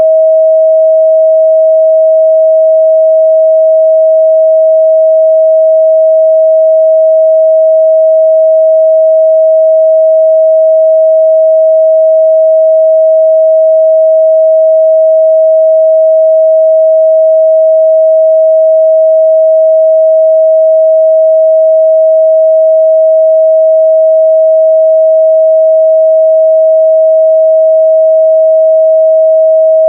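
A steady, loud 638 Hz sine-wave test tone: one pure tone held unchanging, used to check a speaker's or headphone's midrange response.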